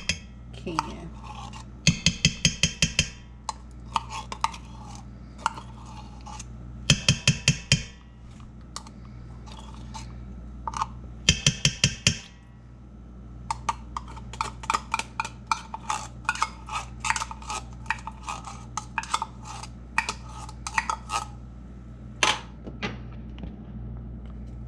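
Metal spoon scraping tomato paste from a can and knocking against the stainless steel inner pot of an Instant Pot. It comes as quick clusters of sharp, ringing taps about 2, 7 and 12 seconds in, then a long run of lighter clinks and scrapes.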